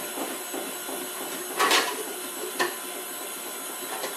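KitchenAid Artisan stand mixer running steadily with its whisk attachment, beating egg yolks into the mix. A spatula in the bowl makes a short clatter about a second and a half in and a click about a second later.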